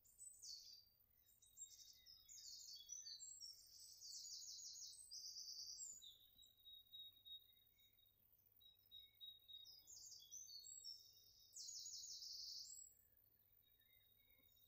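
Faint songbirds singing: high, rapid trilled phrases, one after another with short gaps, the loudest around four to six seconds in and again near the end.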